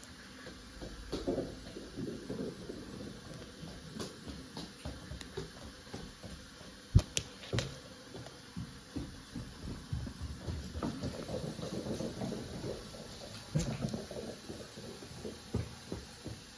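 Irregular scuffing, rustling and light taps of a cat batting at a ribbon wand toy on a laminate floor, with a sharp click about seven seconds in.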